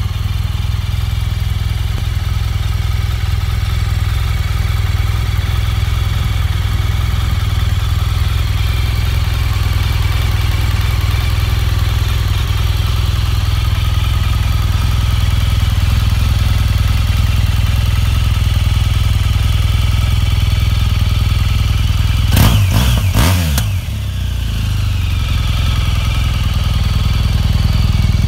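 A BMW R 1200 GS boxer-twin motorcycle engine running steadily at idle. About three-quarters of the way through there is a short burst of clicks and knocks.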